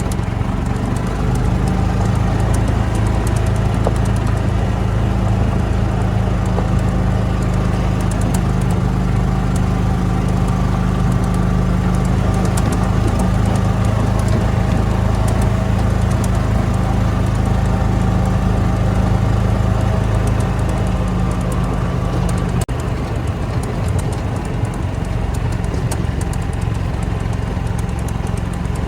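Golf cart running steadily on the move, a low even hum that drops in tone suddenly about 22 seconds in.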